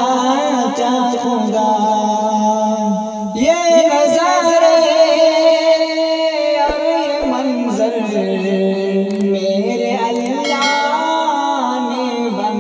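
A male voice singing an Urdu naat (Islamic devotional song), with wavering, ornamented held notes over a steady low hum, and a new phrase starting about three and a half seconds in.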